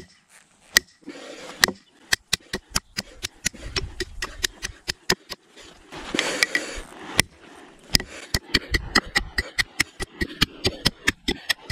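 Rapid repeated strikes on the spine of a Victorinox Venture knife with a Sandvik 14C28N stainless blade, several sharp blows a second, beating the blade to break it. After a few isolated hits in the first two seconds, the blows run on steadily.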